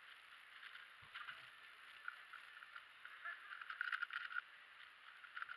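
Plastic clicking and clacking of a MoFangGe QiYi WuQue stickerless 4x4 speedcube turned rapidly by hand, in quick irregular runs of turns that grow densest and loudest about four seconds in.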